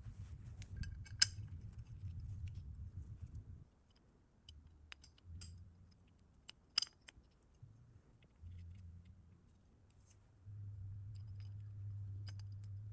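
Small metal parts of a motorcycle gas cap assembly clicking and clinking as they are handled, a few sharp single clicks over a faint low hum.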